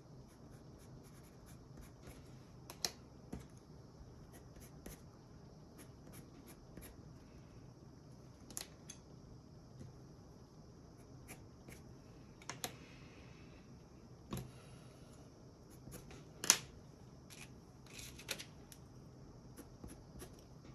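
Colored pencils handled at a desk: faint pencil scratching on paper, with scattered sharp clicks of wooden pencils being picked up and set down, the loudest about two thirds of the way through.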